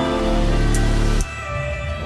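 Background instrumental music with held chords and light percussion, dropping quieter a little past halfway.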